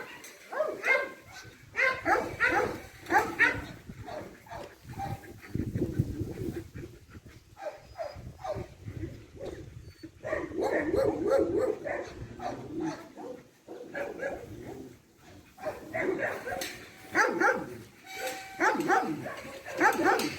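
Dogs barking, in several bouts of short calls with pauses between.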